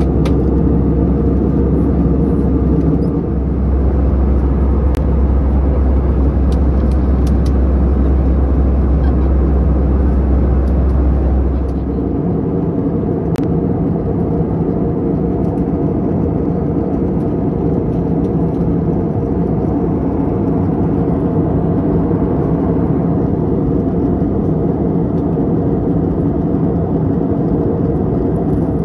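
Steady cabin noise inside an Airbus A320-214 with CFM56 engines: a loud, even rumble of engines and air. About twelve seconds in, the deepest part of the rumble drops away while the rest carries on unchanged.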